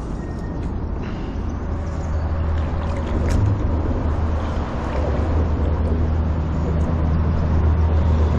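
Steady rumble of road traffic, cars and trucks, growing slowly louder toward the end.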